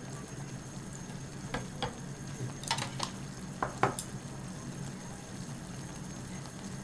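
A nabe hot pot cooking on the burner, giving a steady hiss and low hum. Several sharp clicks and knocks of utensils against the pot come in the middle stretch as ingredients go in.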